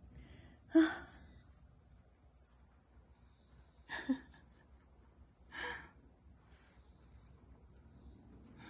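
Steady high-pitched chorus of insects. A few short sounds break over it: the loudest about a second in, then two fainter ones around four and six seconds.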